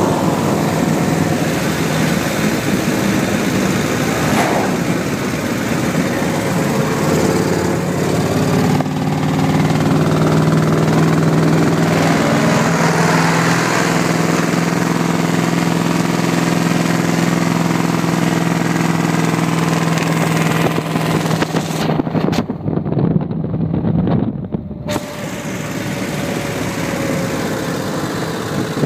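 1931 BSA three-wheeler's V-twin engine running on the move, its note rising and falling with speed over wind and road noise. It turns briefly muffled for a few seconds near the end.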